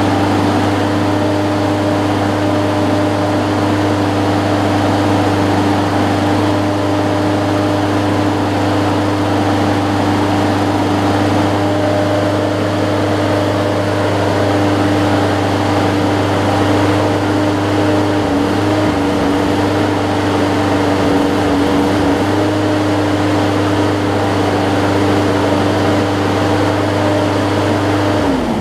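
Briggs & Stratton Quantum engine on a walk-behind push mower running steadily at a constant speed, on a newly fitted carburetor and primer bulb. Near the end it is shut off, and its pitch falls as it winds down to a stop.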